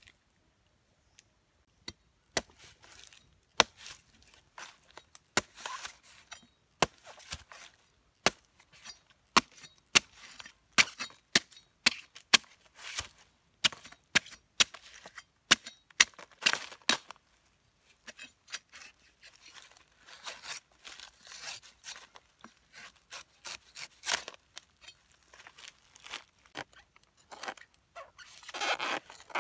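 Large knife chopping and slicing into the husk of a green coconut: irregular sharp strikes mixed with short tearing, scraping cuts through the fibrous husk, starting about two seconds in, with a longer scrape near the end.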